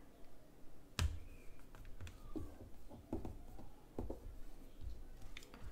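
Hands handling an opened Nintendo Switch console on a silicone work mat: a handful of soft knocks and taps, the sharpest about a second in.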